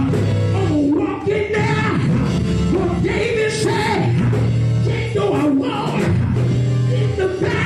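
A man singing gospel into a microphone through a PA, his voice sliding and holding notes over band accompaniment with held bass notes.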